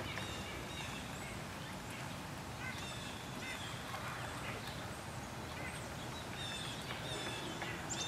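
Birds calling again and again in short high calls over a steady rush of river water.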